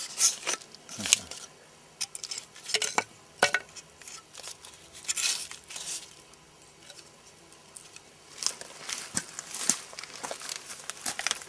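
Dry paper birch bark crinkling and crackling, with irregular scrapes and light clicks, as a baked bun is turned over and handled on it with a knife and a split-stick holder.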